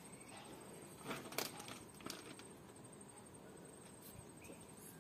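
Faint rustling and a few soft scrapes as potting mix is scooped by hand from a plastic sack, mostly about a second in.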